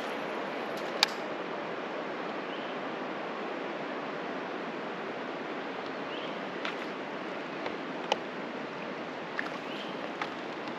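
River water rushing steadily, a constant noise of moving current, with a few short sharp clicks scattered through.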